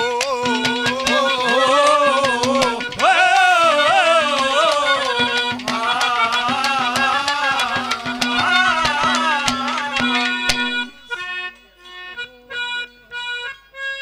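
Instrumental interlude of Haryanvi folk music: a melody that wavers and bends in pitch plays over a steady held drone, with regular drum strokes. About eleven seconds in the bending melody stops, leaving steady held notes and scattered drum beats.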